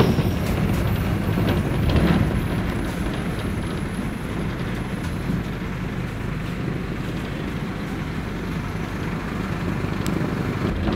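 Steady engine and road rumble heard from inside a moving vehicle, mostly deep and low.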